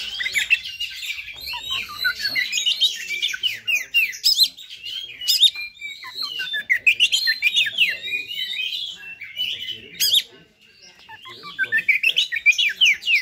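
Oriental magpie-robin (kacer) singing a rapid string of varied chirps, whistles and harsh notes, breaking off briefly about ten seconds in and then starting again. It is the agitated fighter song that kacer keepers play to provoke other birds.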